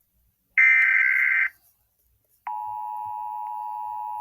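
Emergency Alert System SAME header: the last of its bursts of data tones, lasting about a second. After a second's gap comes a steady, quieter attention tone. Together they announce that a new weather warning message is about to follow.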